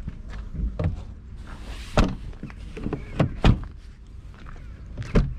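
Mercedes-Benz sedan doors being handled: a series of sharp thunks and latch clicks. The loudest comes about two seconds in, with more about three and a half seconds in and near the end.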